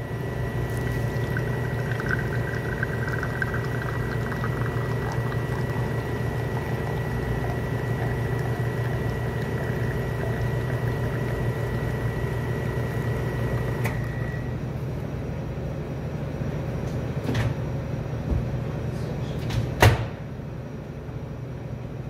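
Commercial espresso machine running steadily while a single shot extracts into a shot glass. A few clicks come near the end, followed by one sharp knock, after which the machine is quieter.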